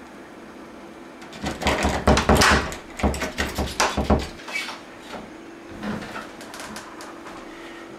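A metal lever door handle and door rattling and clattering hard in two bursts of rapid knocks, then the door coming open.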